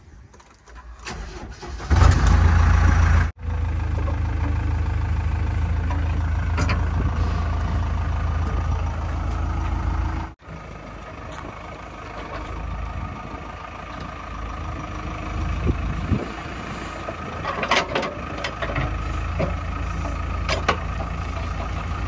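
JCB 3DX backhoe loader's diesel engine cranked with the key and catching about two seconds in, then running steadily at idle, with a few short knocks near the end.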